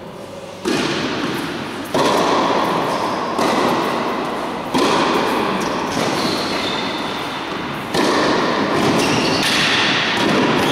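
Tennis ball hit back and forth in a rally: a series of sharp racket hits and bounces, each followed by a long echo in the large indoor hall.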